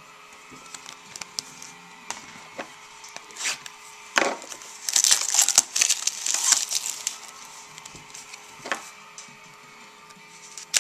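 Trading-card pack being opened by hand: scattered clicks and rustles, then a few seconds of loud crinkling and tearing about midway, with taps as the cards are handled.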